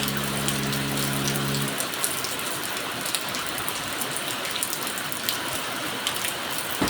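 Steady rain falling, with scattered drops ticking on a surface. A low held music chord stops a little under two seconds in.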